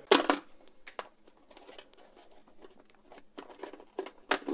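Paperboard box of Lotte Koala's March biscuits being torn open by hand: a loud rip at the start, faint crinkling and small clicks of the card, then another sharp crackle near the end.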